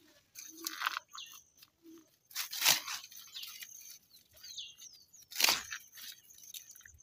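Dry banana leaves and fibre crackling and tearing as they are pulled from the base of a banana plant, in three loud tearing bursts with softer rustling between.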